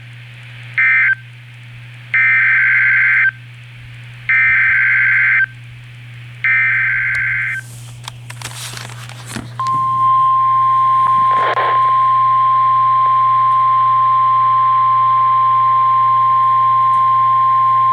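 Emergency Alert System SAME data header: a short burst of warbling digital tones about a second in, then three longer bursts of about a second each. After a brief crackle of static, the steady 1050 Hz weather-radio warning alert tone holds for about nine seconds, announcing a new tornado warning. A low electrical hum from the radio receiver runs underneath.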